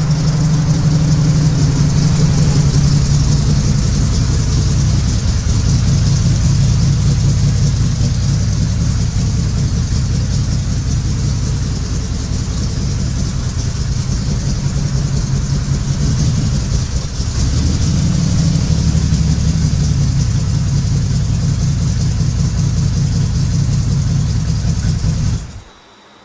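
Car engine running at a steady speed, its pitch shifting a couple of times, starting and cutting off abruptly.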